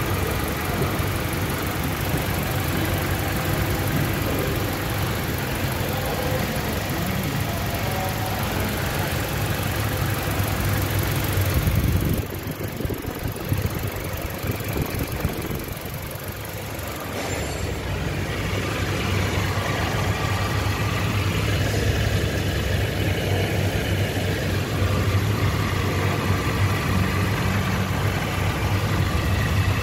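Toyota Innova engine idling steadily, a smooth even hum with no misfire, just after a cylinder head overhaul. About twelve seconds in the sound drops away for about five seconds, then the idle comes back as loud as before.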